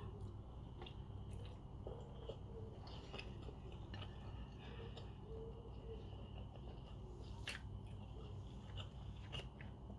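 Faint close-up chewing of a mouthful of rice and beef rendang, with scattered small wet mouth clicks, over a steady low hum.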